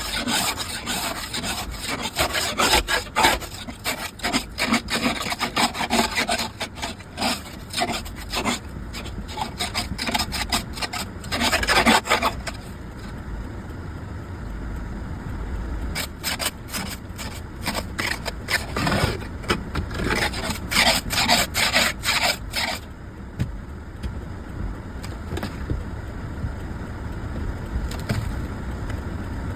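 Ice scraper scraping a thin sheet of ice off a car windshield in quick repeated strokes, in two spells with a pause of a few seconds between them; the ice is a glaze left by freezing mist.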